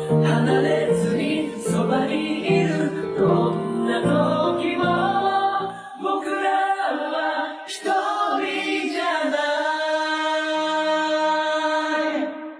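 Vocal music: a group of voices singing over a steady bass accompaniment. The bass drops out about halfway, and the voices end on one long held chord near the end.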